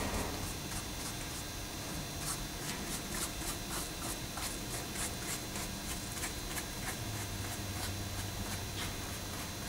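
Soft paintbrush sweeping loose fine gravel into the gaps of a model riverbed, a continuous run of short, quick scratchy strokes.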